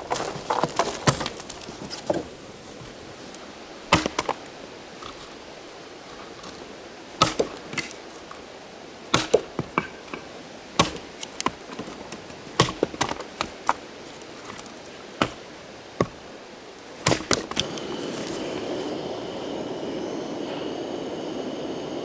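Sharp, irregular knocks of firewood being chopped with an axe, single blows and quick pairs a second or two apart. Near the end a steady rushing noise with a high whine comes in and stays.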